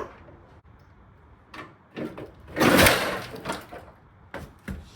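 Knocks and clunks from taking apart the front end of an old Chevy Suburban, with one loud crash about two and a half seconds in as something gives way unexpectedly.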